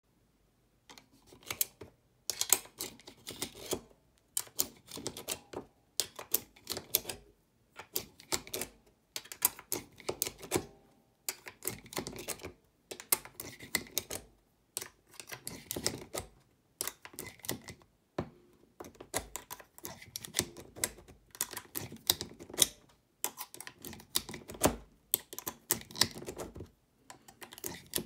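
9mm cartridges pressed one by one into a Ruger P89/P95 double-stack steel magazine through an orange PETG plastic speedloader: short clusters of clicks and clacks of brass, steel and plastic, one cluster every second or so.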